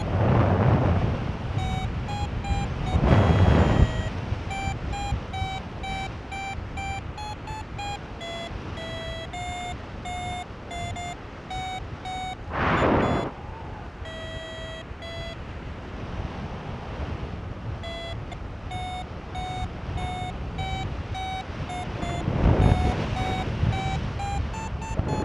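Paragliding variometer beeping: a run of short tones whose pitch steps up and down, the audio signal that the glider is climbing. The beeping stops for about two seconds past the middle, and loud gusts of wind hit the microphone four times.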